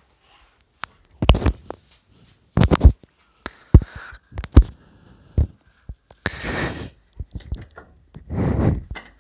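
A series of sharp knocks and clicks at irregular times, with two longer bursts of rustling, the louder about two thirds of the way in.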